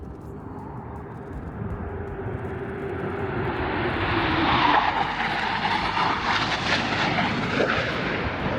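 A low-flying military jet passing overhead: a rushing engine noise that builds to a peak about halfway through, with a tone that drops slightly in pitch as it goes by, then starts to fade.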